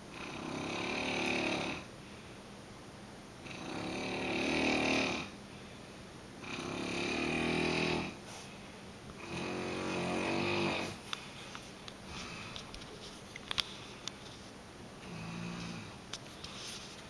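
Snoring: four loud, rasping snores about three seconds apart, each growing louder through the breath. They are followed by a quieter stretch with a few small clicks and one softer snore near the end.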